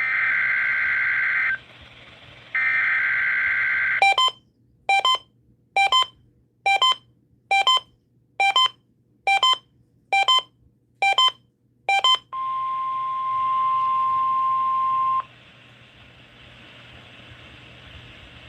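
NOAA Weather Radio alert test over the air. It opens with two bursts of the SAME digital header's warbling data tones, followed by ten short beeps a little under a second apart. Then the steady 1050 Hz warning alarm tone sounds for about three seconds and cuts off abruptly, leaving faint radio hiss.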